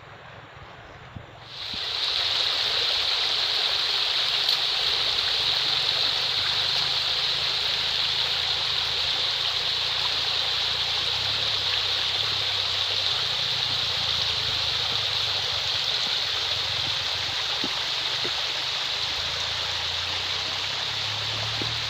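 Water of a small river flowing and trickling, a steady rushing noise that starts suddenly about a second and a half in.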